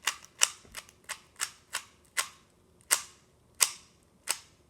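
Rubik's Cube being turned quickly during a solve, its layers snapping into place in sharp clicks. The clicks come about three a second at first, then more slowly, with a pause between turns.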